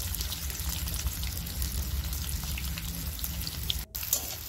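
Sliced onions sizzling in hot oil in a metal karahi: a steady sizzle with faint scattered crackles over a low rumble. It cuts out for an instant near the end.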